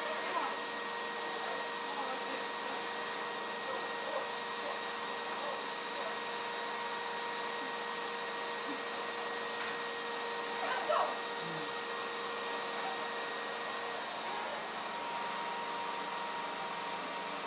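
Vacuum cleaner running steadily, a continuous rushing noise with a high motor whine; a lower part of its hum drops out about fourteen seconds in.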